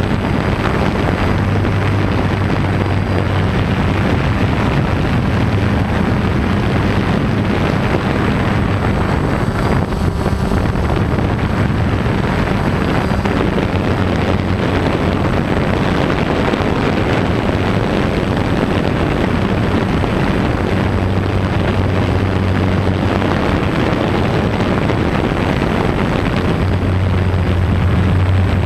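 DJI Phantom quadcopter in flight, its four brushless motors and propellers making a steady buzzing drone with a low hum that swells and eases as the motors change speed, heard from the camera carried on the aircraft.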